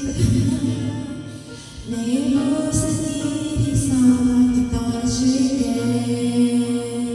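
A young woman singing a Korean song karaoke-style into a handheld microphone over a backing track, pausing briefly between phrases and then holding long notes.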